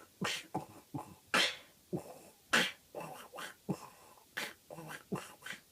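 Beatbox demonstration: a rhythmic run of short, sharp mouth sounds, about two or three a second, in which the duck sound's quacks are layered with throat bass.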